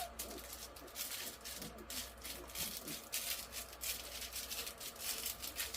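Crinkly tail of a plush raccoon toy being crinkled by hand. It makes a rapid, irregular crackling that sounds like a bag.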